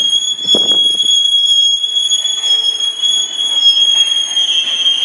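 Freight train of open box wagons rolling slowly past, its wheels giving a steady, loud, high-pitched squeal over the rumble and occasional knocks of the wagons. The squeal dips slightly in pitch near the end.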